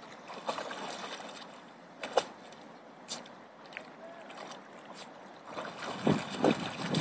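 Water sloshing and splashing as a dog wades through a shallow river, with a run of louder splashes near the end.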